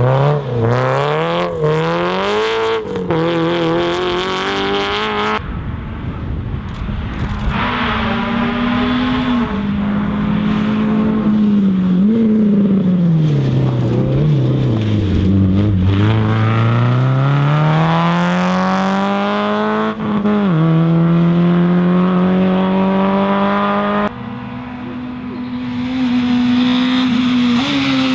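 Rally car engines running hard, revving up through the gears and dropping back on lifts and shifts, the pitch climbing and falling again and again. It changes abruptly a few times, as from one car to another.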